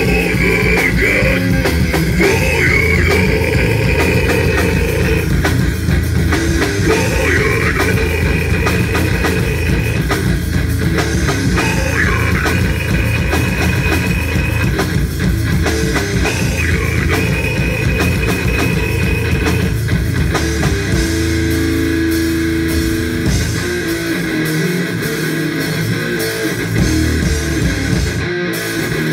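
A heavy rock band playing live, with guitars, drums and a singer's voice over them in the first half, as picked up by a phone's microphone. In the last third the lowest end drops back, leaving mostly the guitars.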